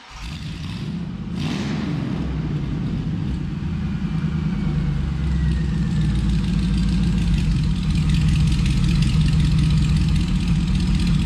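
Freshly built Schwanke Engines Stage I street performance engine in a 1955 Chevrolet 3100 rolling chassis starting up: it catches suddenly, gives a short burst about a second and a half in, then settles into a steady idle through its Heartthrob exhaust, slowly getting louder.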